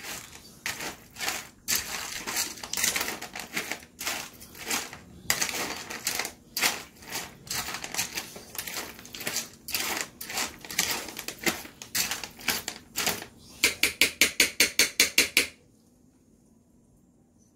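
Dishes and utensils clattering and scraping as dog food is dished up. It ends in a quick run of about ten sharp taps, about six a second, then stops suddenly.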